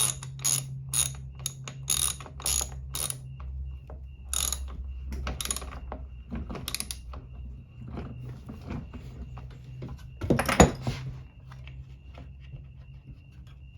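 Socket ratchet clicking in quick even strokes, about three clicks a second for the first few seconds, then scattered clicks, with one louder clatter about ten seconds in; it is turning the bolts of a Honda HR194 mower's air filter box.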